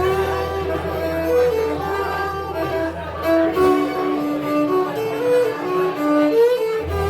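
Live folk band playing an instrumental passage: a melody of held and moving notes over a sustained low note, which drops out partway through and comes back near the end.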